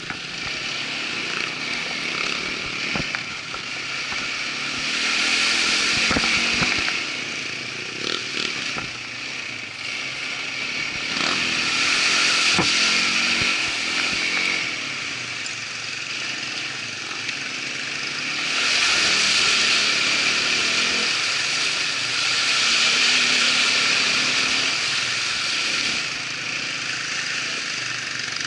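Irbis ATV 200 quad's engine running on the move, its loudness swelling and easing several times as the throttle is opened and closed. There are a few sharp knocks in the first seconds.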